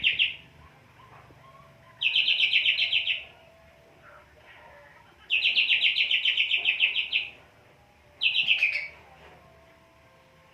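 Caged cucak hijau (green leafbird) singing in repeated bursts of fast, evenly pulsed trilled notes, three bursts of about one to two seconds each with short pauses between them.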